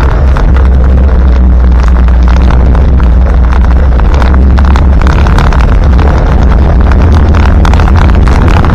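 Loud, steady cab sound of a 1977 Land Rover Santana Series 3's 2.25-litre four-cylinder diesel engine pulling the vehicle along, a deep drone with many short rattles over it.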